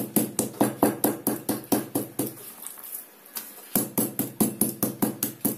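Metal meat mallet pounding a raw chicken breast fillet on a plastic cutting board: quick, even strikes, about five a second, with a short pause about halfway through.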